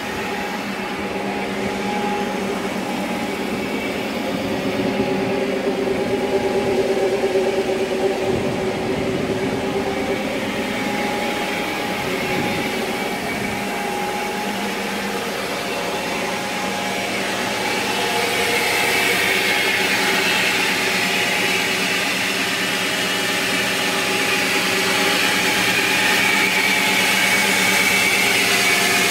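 Pickup truck with a swapped-in 5.3 L LS V8 running with a steady drone. A rushing noise builds and grows louder over the second half.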